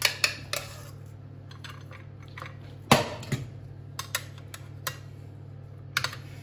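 A spoon working mashed potato into a metal ring mould on a plate: soft squishing with scattered light clicks of the spoon against the metal, and one sharper knock about three seconds in, over a steady low hum.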